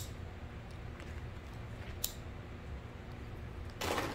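Quiet handling sounds over a low steady hum: two light clicks, the first at the start and the second about two seconds in, then a short rustle near the end as a nylon webbing strap is laid down on the bag panel.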